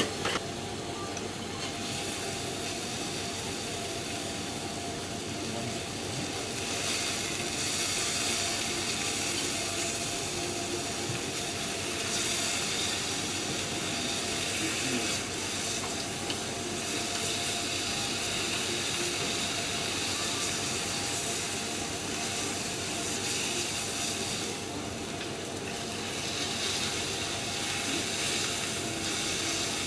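Chateaubriand beef fillet sizzling on a hot steel teppanyaki griddle: a steady hiss that swells louder a few times.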